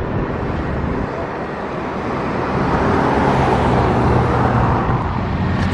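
Road traffic going past, with a vehicle's noise swelling about halfway through and a low engine hum under it.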